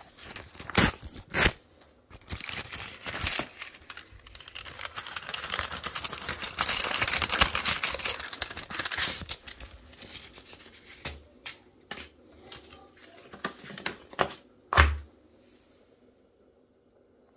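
A paper envelope being torn open and the paper inside rustled and unfolded, with a long stretch of tearing and crinkling in the middle. A few sharp taps come at the start, and a single heavier thump near the end before it goes quiet.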